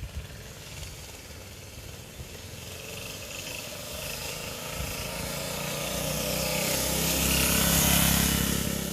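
Single-cylinder Briggs & Stratton engine of a 1966 Taco 44 mini bike running, growing steadily louder to a peak near the end.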